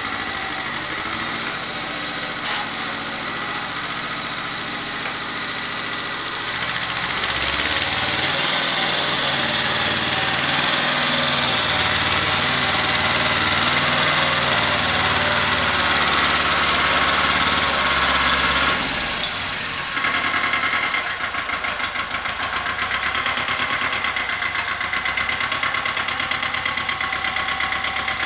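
Satoh Beaver S370 compact tractor's engine running while plowing snow. It works harder and louder for several seconds in the middle, dips briefly, then settles into an even, pulsing run.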